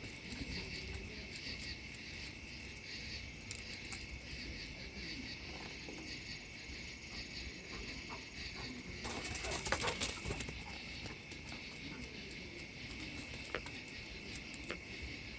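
Crickets chirping steadily, a high pulsing drone, with a louder burst of rustling noise about nine to ten seconds in.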